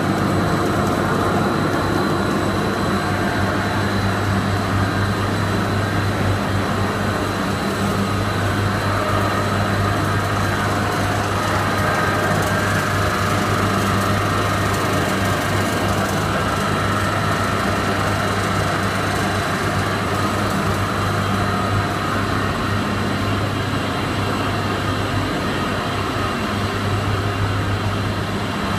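Corn-chip production line machinery running steadily: a continuous mechanical din with a steady low hum.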